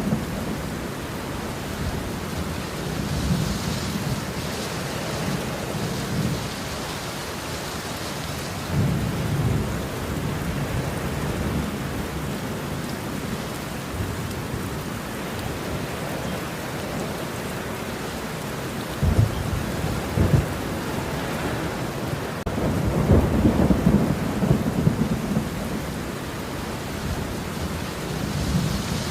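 Steady heavy rain with thunder rumbling repeatedly: low rolling swells several times, two short sharp cracks a little after the middle, and a longer rumble near the end.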